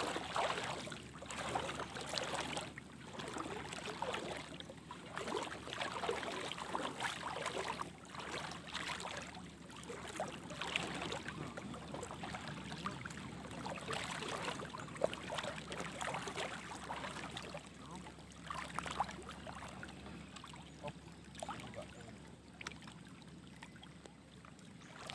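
Water splashing and dripping, in irregular swishes, as a wet fishing net is hauled hand over hand out of a shallow river.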